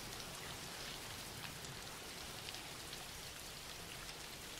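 Quiet, steady rain with small individual drops ticking here and there: a continuous rain background.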